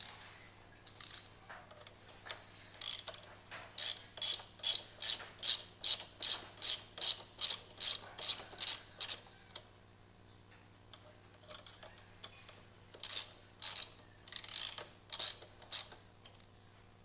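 Ratchet wrench clicking in quick, even strokes, about three a second, as a bolt is worked loose; the clicking stops for a few seconds near the middle, then starts again for a shorter run.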